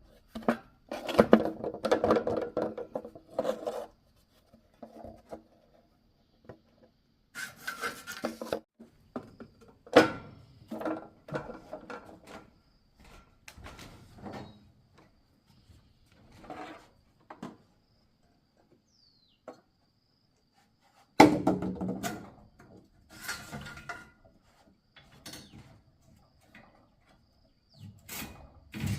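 Irregular wooden knocks and scraping or rubbing in bursts, with short quiet gaps between them; the loudest bursts come about a second in and again at about twenty-one seconds.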